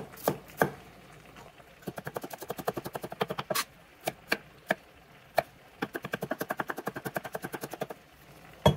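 Chef's knife mincing garlic on a wooden end-grain cutting board: a few separate chops, then two quick runs of light, even taps at about ten a second with single chops in between, and a louder knock near the end.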